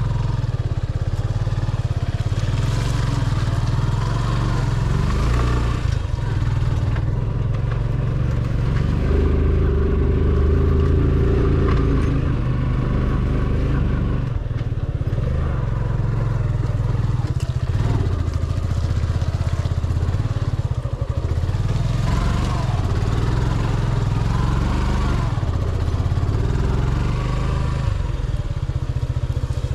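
Motorcycle engine running under way on a badly broken hill road, its note rising and falling with the throttle; it is louder and higher for a couple of seconds around ten seconds in.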